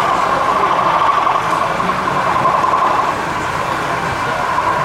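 Model train running steadily on a layout's track, the continuous sound of its small motor and wheels on the rails.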